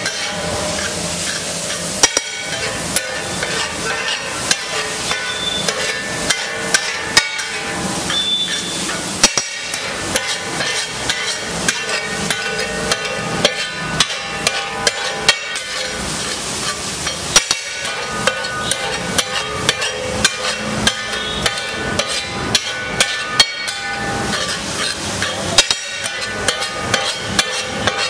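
Flat steel spatula striking and scraping a large iron tava as rice is chopped and mixed into the masala: rapid, irregular metallic clacks, several a second, over a steady hiss.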